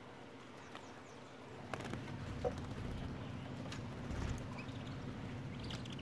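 Faint, short bird chirps over a low, steady hum that swells about two seconds in, with a few sharp clicks.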